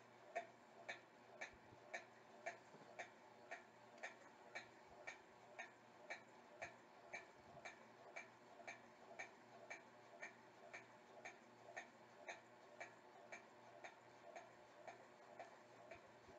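Faint, evenly spaced ticking, about two ticks a second, keeping a steady beat throughout.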